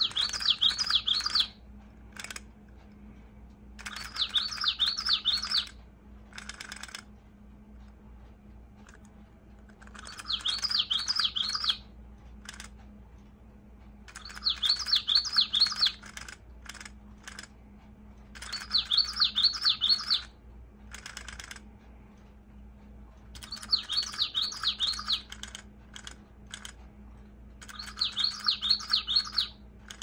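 Takara Breezy Singers Common Yellowthroat toy bird playing a recorded common yellowthroat song: seven phrases of quick repeated high notes, each about one and a half seconds long, coming every four to five seconds, with short clicks in between.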